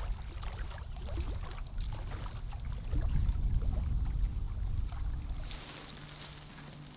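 Wind rumbling on the microphone at a rock shoreline, with small waves lapping and ticking against the rock. About five and a half seconds in, the rumble drops away to a fainter, higher rustle.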